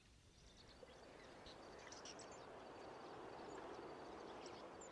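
Faint outdoor ambience: scattered high bird chirps over a soft hiss that slowly grows louder.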